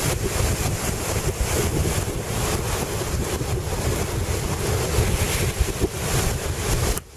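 Strong wind of about 25 knots buffeting the microphone in a gusty rumble, over the wash of waves breaking on the shore.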